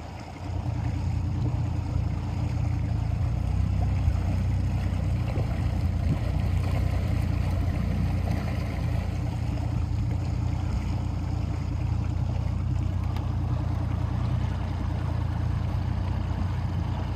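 Motorboat engine running steadily with a low hum, with water rushing along the hull. The engine note comes up about half a second in.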